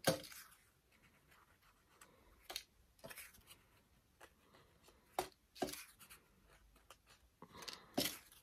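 Paper petals being handled and pressed onto a paper rose: faint, scattered rustles, scrapes and light taps, a handful of them, the loudest at the very start and near the end.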